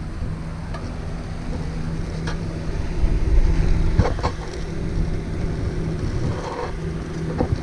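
A few light knocks and clicks from handling fog-light and bumper parts, over a steady low hum, with a low rumble about three seconds in.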